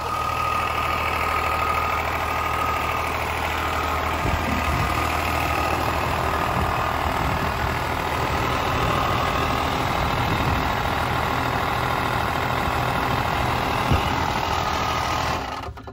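A vehicle engine idling steadily, just after being started, with a faint whine over the first few seconds. It cuts off abruptly near the end.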